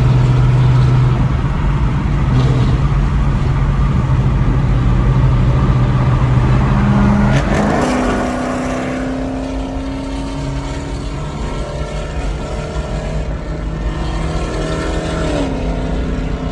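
Car engines running hard at highway speed with wind noise. The deep steady engine drone gives way about halfway through to a higher engine note that slowly falls, dropping again near the end.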